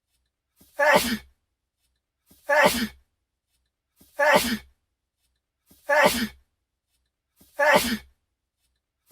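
A man's sneeze, one recording looped, repeating evenly about every 1.7 seconds: five identical sneezes, each a faint catch of breath and then the sneeze itself.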